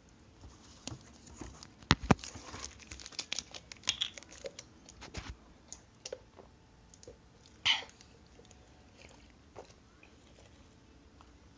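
Plastic clicks and knocks of a weekly pill organizer being handled and a pill taken out, with two sharp snaps about two seconds in, a run of small clicks and rattles after them, and a short rustling burst near the end.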